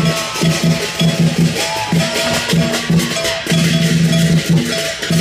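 Recorded music with a steady, repeating beat, played loud over outdoor loudspeakers.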